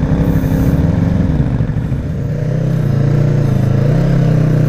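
Motorcycle engine running at low speed on loose sand, the revs easing off about two seconds in, then rising again and holding steady.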